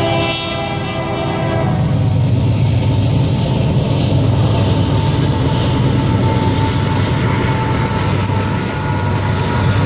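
Union Pacific freight train's diesel locomotive air horn sounding a chord that cuts off about a second and a half in. It is followed by the steady low rumble of several diesel locomotives, growing a little as the train draws near.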